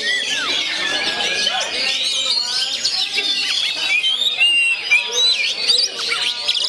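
Oriental magpie-robin (kacer) song: a busy, unbroken run of varied whistles, chirps and rising and falling notes, overlapping densely.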